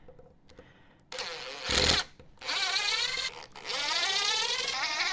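Power drill backing metal screws out of a wooden dining chair. The motor whines in three runs starting about a second in, its pitch sliding up and down with the trigger, with a short louder burst near two seconds in.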